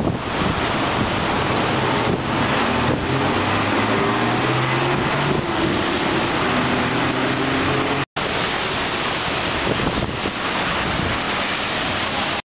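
Strong typhoon wind buffeting the microphone in a continuous rush, with a vehicle engine humming through it for several seconds in the middle. The sound cuts out for an instant about eight seconds in.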